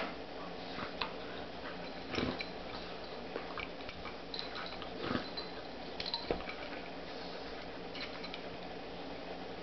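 Australian Shepherd and a Golden Retriever puppy play-wrestling: scattered soft clicks, knocks and scuffles of jaws and mouths on fur as they mouth each other, a handful of them sharper, under a faint steady hum.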